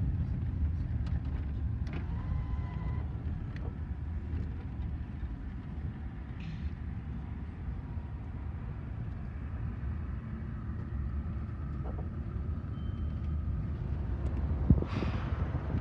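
Steady low engine rumble heard from inside a car. A brief knock and rushing noise come near the end.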